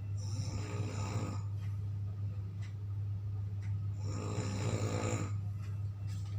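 A person snoring twice: two long, rattling snores about four seconds apart, over a steady low hum.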